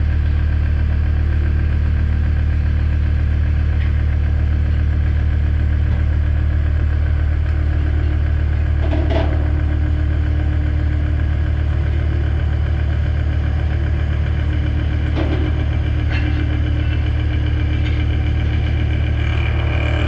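Mazak horizontal machining centre milling AR400 abrasion-resistant steel plate: a loud, steady machine drone with a cutting tone above it and a few short, sharper sounds from the cut.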